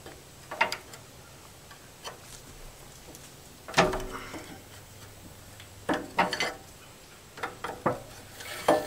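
Crescent wrenches clicking and clanking on a backhoe's hydraulic hose fitting as it is worked loose: about eight sharp clicks and knocks at uneven intervals.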